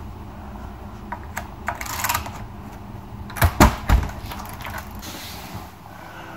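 Sleeper-train compartment door being unlocked with a key card and opened: a few small clicks and a rattle at the lock and handle, then three loud clunks of the door latch and door a little over three seconds in. A steady low rumble of the train runs underneath.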